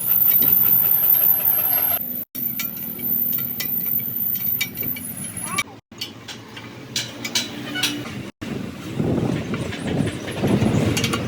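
Metal clanks and knocks from work on a steel truck rim, in several short clips cut together.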